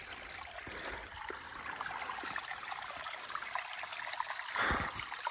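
Rainwater runoff trickling over rock through a narrow channel in a desert wash, a steady splashing hiss, with a brief louder swell near the end.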